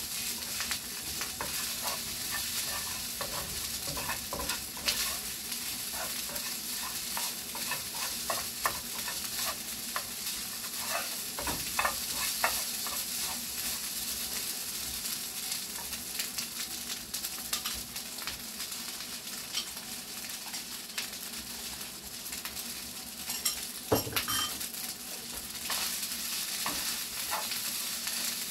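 Rice frying in a pan on a gas stove, with a steady sizzle while a spatula stirs it, clicking and scraping against the pan many times. A louder knock comes twice, near the middle and near the end.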